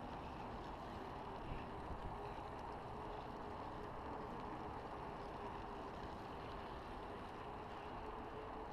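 Steady rushing noise of a moving bicycle: tyres rolling on asphalt and wind over a handlebar-mounted action camera, with a faint steady hum underneath.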